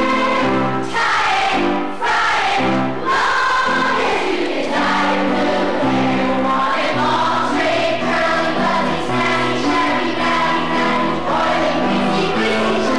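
A song playing: several voices singing together over an accompaniment with a steady sequence of low notes.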